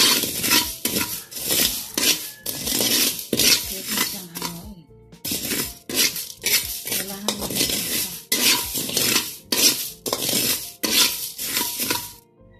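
Metal spatula scraping and clanking against a metal wok while stirring leftover rice as it toasts until crisp. The strokes come about twice a second, with a brief pause about five seconds in.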